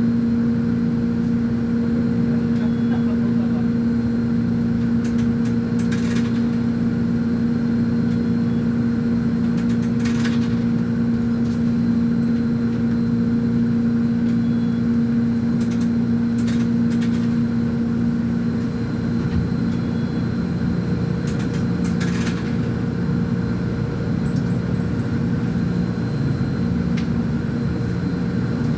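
Volvo B10M articulated bus's diesel engine running at a steady, unchanging pitch, easing slightly about two-thirds of the way through. A few brief sharp sounds cut in over it.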